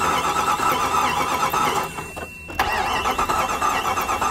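1998 Jeep Grand Cherokee's 5.9-litre Magnum V8 cranking on its starter without firing. It stops about two seconds in, then cranks again; the engine will not start.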